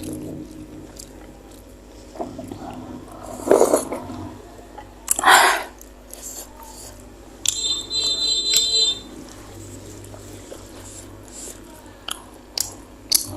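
Close-miked eating of spicy meatballs: chewing and mouth sounds, with a few short loud noisy bursts and a brief high-pitched squeal a little past halfway.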